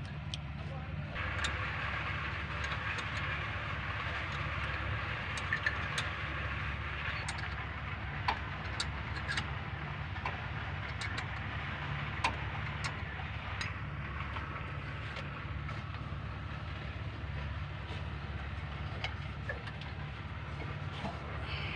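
Scattered sharp metallic clicks of a wrench working the mounting bolts of a new alternator, over a steady low mechanical drone and a hiss that sets in about a second in.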